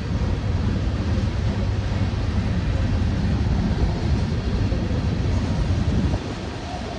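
Freight cars of a long Union Pacific manifest train rolling past, a steady low rumble of wheels on rail that eases a little near the end.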